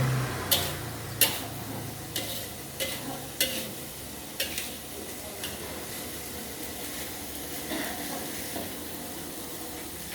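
Nasi goreng sizzling in a frying pan while it is stirred, the spatula striking the pan in sharp clanks, several in the first half and only a few after.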